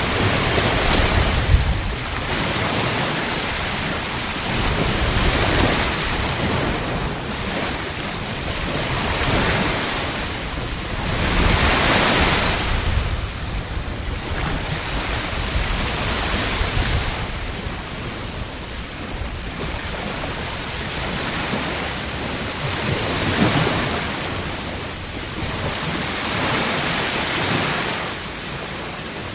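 Sea waves breaking and washing on the shore, a steady rush of surf that swells and eases every few seconds.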